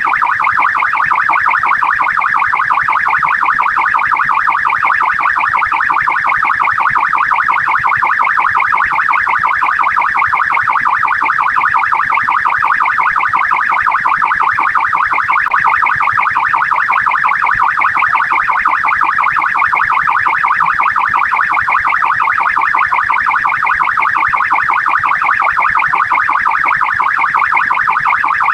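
Australian police car electronic siren sounding continuously in a fast, rapidly repeating warble, steady in level throughout.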